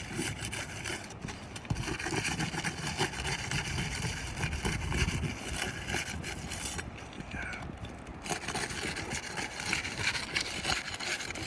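A tool prying and scraping under asphalt shingle tabs, breaking the adhesive tar seal strip: continuous rough scraping and crackling with small knocks, easing briefly about seven seconds in.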